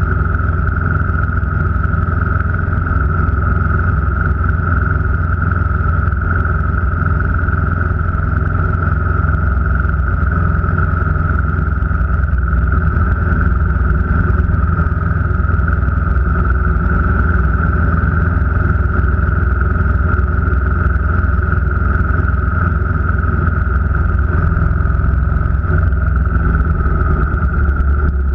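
A vehicle's engine and road noise heard on the move, holding a constant speed: a steady low drone with a constant higher hum over it, with no revving or gear changes.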